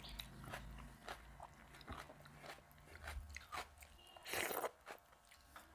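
Close-miked eating by hand: wet clicks of fingers mixing rice with dal and of chewing, with a louder noisy burst about four and a half seconds in as a handful goes into the mouth.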